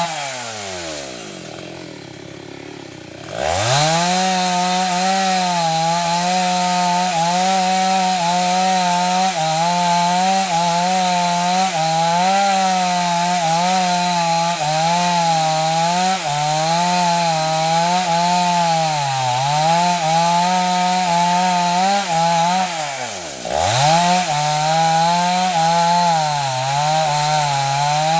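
Two-stroke chainsaw cutting wood: the engine drops back toward idle at the start, revs up again about three seconds in and runs hard with a wavering pitch as it bites into the wood, then dips sharply once and picks straight back up a few seconds before the end.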